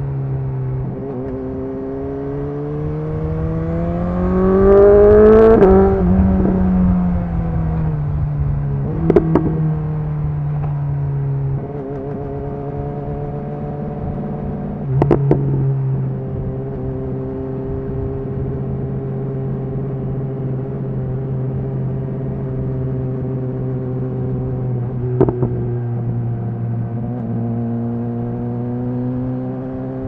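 BMW S 1000 XR inline-four running through a Cobra slip-on exhaust with the dB killer removed. Early on the revs climb for a few seconds and then drop away, and after that the engine runs at steady cruising revs. Three short sharp cracks come through the steady running.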